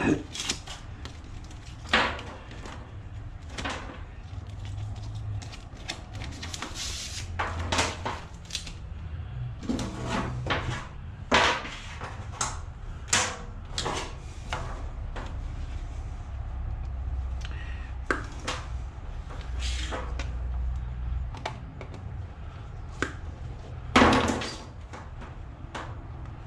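Irregular knocks, clunks and rattles of scrap items being handled and set down, with one heavier knock near the end, over a steady low rumble.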